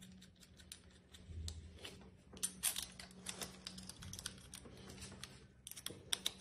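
Small screws and metal slingshot parts handled by hand as the screws are fitted into the sight base: scattered light clicks and ticks, with a quick run of clicks near the end as a screwdriver is put to a screw.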